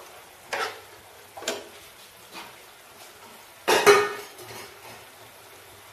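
A spatula stirring peas through thick gravy in a frying pan: a few short scrapes about a second apart, then a louder scrape and clatter against the pan a little past halfway.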